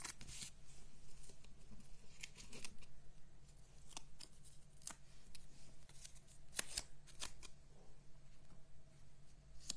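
Paper crafting handling: about a dozen short, crisp paper rustles and crackles scattered irregularly, as small cardstock pieces are peeled and pressed in place on a card.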